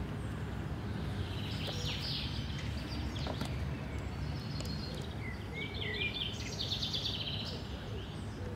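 Outdoor ambience of small birds chirping and warbling in two spells, the second longer, over a steady low background rumble.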